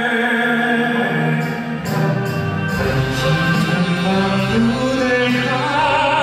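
A male vocal quartet singing sustained chords with a Korean traditional (gugak) orchestra accompanying them. A deep bass part comes in about three seconds in.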